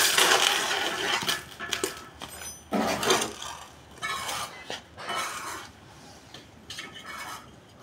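Bricklaying: a steel trowel scraping and clinking on mortar and hollow clay bricks, one long scrape at first and then a run of short scrapes and knocks, with a brick being set in place near the end.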